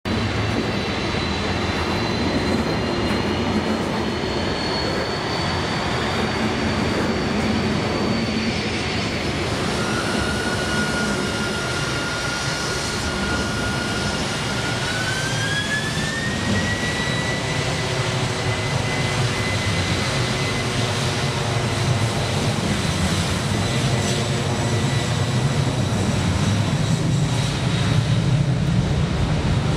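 Boeing 747's jet engines running with a high whine over a steady rumble. About halfway through the whine rises in pitch and holds higher as the engines spool up, and the rumble grows somewhat louder near the end.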